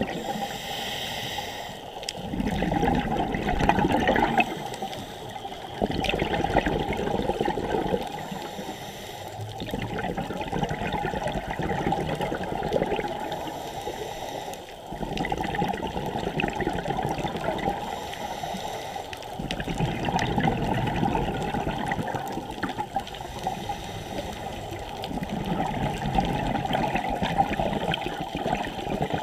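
Underwater gurgle and rush of a scuba diver's regulator exhaust bubbles, surging in bursts every few seconds with quieter stretches between.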